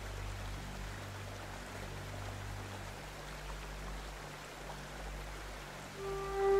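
Steady rushing water noise over a low, steady hum. A flute melody comes in near the end.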